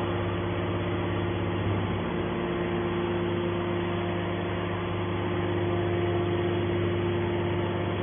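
Hydraulic power unit of a scrap metal baler running with a steady hum while the baler's hinged top lid is raised.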